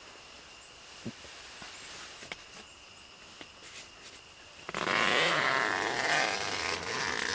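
A few faint ticks and clicks, then a loud rustling noise that starts suddenly near the five-second mark and runs for about two and a half seconds, typical of the camera being handled or moved.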